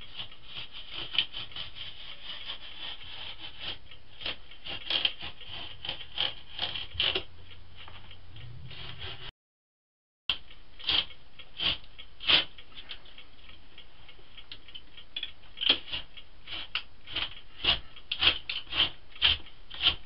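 Irregular wooden knocks, clicks and scrapes as a closet's door-frame trim is pried and knocked loose, heard over a steady hiss from a trail camera's microphone. The knocks come more often in the second half, and the sound cuts out for about a second near the middle.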